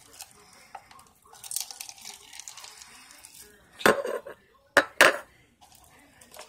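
A plastic slime container being handled and knocked while trying to get the slime out: a crackly rustling, then a sharp knock and two more in quick succession about a second later.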